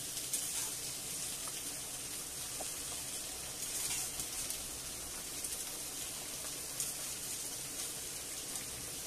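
Potato chips frying in a pan of hot oil: a steady sizzle with faint crackling.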